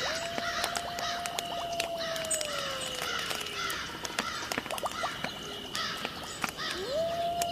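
Night-time frog chorus of clicks and chirping croaks. Over it, twice, comes a long drawn-out wailing call that holds its pitch for a couple of seconds, then slides slowly downward.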